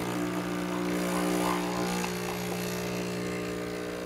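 Nespresso U espresso machine's pump running as it brews a shot of espresso: a steady, even hum that cuts in suddenly right at the start.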